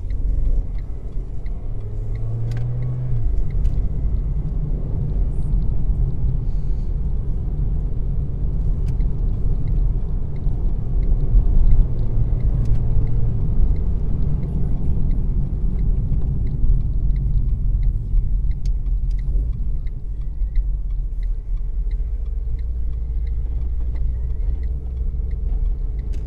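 Car engine and road rumble heard from inside the cabin while driving, a steady low drone with the engine note rising briefly about two seconds in as the car speeds up.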